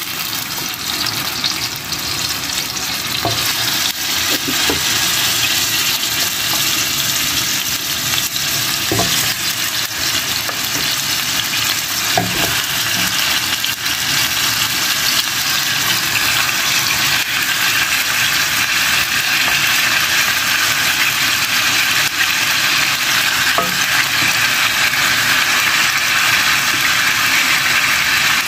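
Marinated pork ribs sizzling in hot butter in a frying pan as pieces are laid in one after another. The frying grows louder over the first few seconds as the pan fills, then holds steady, with a few light knocks as pieces go in.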